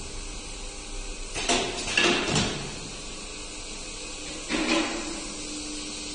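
Weight-grading sorting conveyor running with a steady hum, its diverter flaps clacking in short bursts about one and a half, two and four and a half seconds in.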